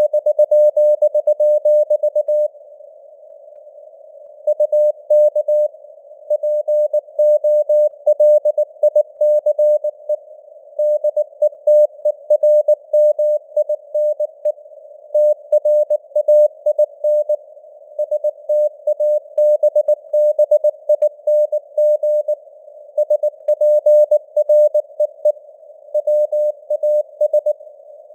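Morse code at about 19 words per minute: a mid-pitched CW tone keyed in rapid dots and dashes over a narrow band of simulated radio hiss, with a pause of about two seconds some two and a half seconds in.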